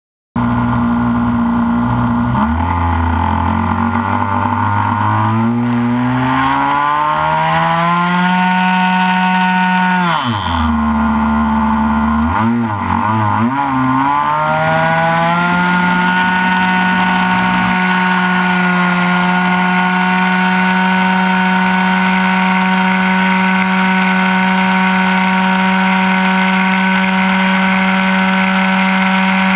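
ASP 61 two-stroke glow engine on an RC model plane, heard close up from the airframe. It revs up with a rising pitch, drops back sharply about ten seconds in and is blipped up and down a few times. It then runs up again and holds a steady high speed through the take-off and climb.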